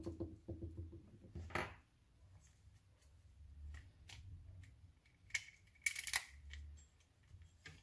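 Small clicks and handling noises from a Shimano Sahara spinning reel as its crank handle and side screw cap are taken off to move the handle to the other side, with two short rasping scrapes: one about a second and a half in, and a longer one around five to six seconds in.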